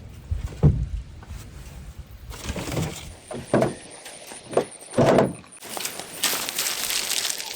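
A few separate dull knocks and thumps, then a stretch of rustling and scraping near the end, from tools or gear being handled during outdoor work.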